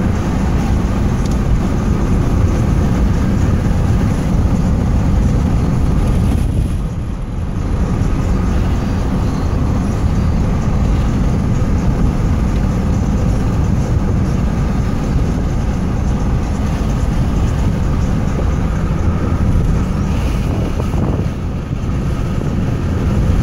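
Steady rumble of a car's road and engine noise heard from inside the cabin while driving.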